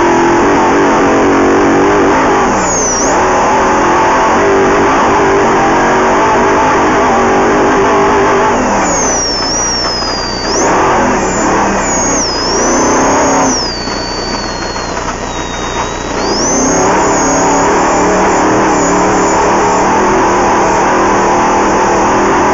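Off-road race vehicle's engine running hard at speed, its revs falling and climbing again several times about halfway through as the throttle is lifted and reapplied, then holding steady at high revs.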